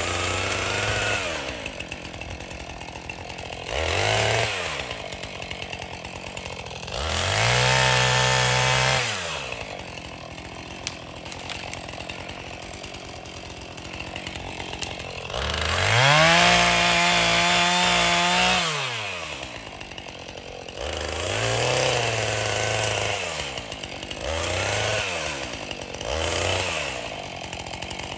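Husqvarna two-stroke chainsaw, heard from some distance, idling and revving up about six times as it cuts. The two longest runs at full throttle last two to three seconds, about a quarter and about two thirds of the way through, with shorter blips between.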